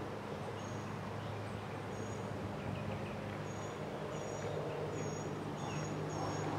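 Diesel locomotive of an approaching BNSF freight train, its engine a steady low drone that slowly grows louder. A bird's short, high chirps repeat over it about every half second to second.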